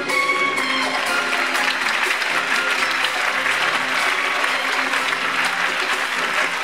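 Audience applause swelling about a second in, over the act's backing music, which keeps playing with held tones beneath it.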